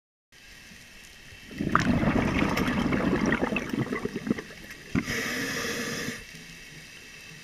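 Scuba diver breathing through a regulator underwater, heard through a GoPro housing: a loud gurgling stream of exhaled bubbles for about three seconds, then a steady hissing inhale about five seconds in.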